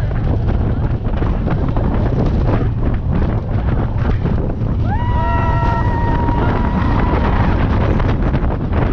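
Wind buffeting the microphone on a moving Slinky Dog Dash roller coaster, over a steady low rumble from the train. About five seconds in, a high rider's whoop rises and holds for about two seconds.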